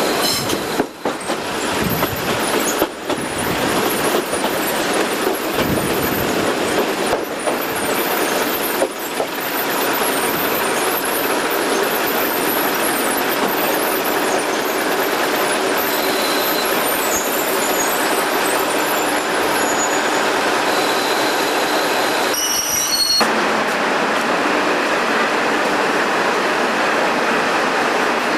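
Diesel express train pulling into a station and standing at the platform, its running noise steady throughout, with high metallic squeals, typical of brakes or wheels, during the first twenty seconds or so.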